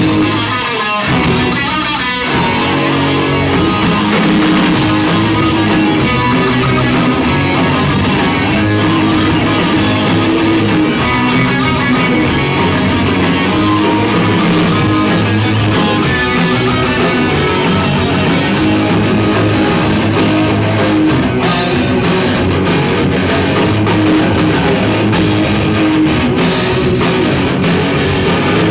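Rock band playing live and loud: electric guitars and drums, steady throughout.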